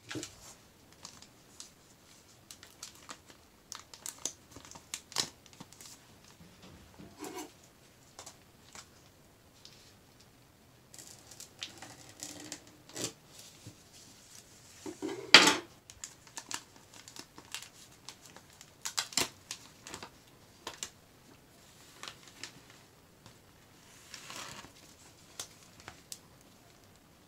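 Paper and plastic SIM card packaging handled by a gloved hand: irregular crinkling and rustling with small taps and clicks, and one much louder crackle about halfway through.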